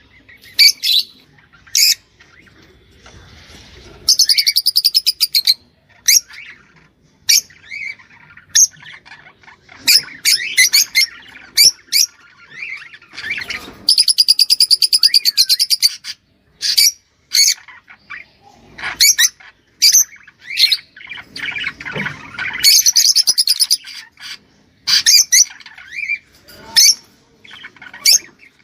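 Small cage birds chirping and singing, with short sharp high calls throughout. Three long, fast, buzzy trills come about four, fourteen and twenty-two seconds in.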